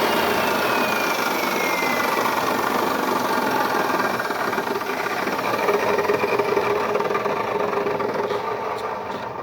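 Makita electric chop saw running loud, its pitch sagging over the first two seconds, then fading near the end as it spins down.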